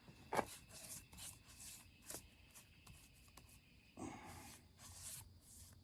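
Faint brushing and rubbing as a finish is worked onto a burl wood piece, with scattered light clicks and scrapes and a slightly louder rustle about four seconds in.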